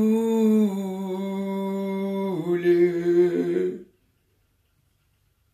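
A man singing unaccompanied, holding one long drawn-out vowel that steps down in pitch twice before stopping abruptly about four seconds in.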